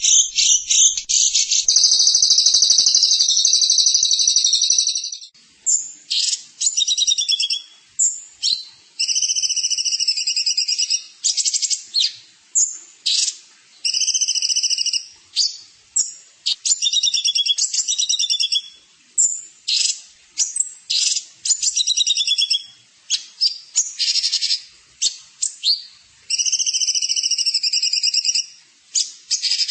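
A small songbird singing very rapid, high-pitched, buzzy trills. It opens with an unbroken stretch of about five seconds, then repeats short trilled phrases of about a second each, separated by brief pauses.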